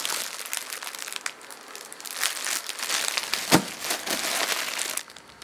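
Plastic packaging crinkling and rustling as it is handled, with a sharp click or knock about three and a half seconds in.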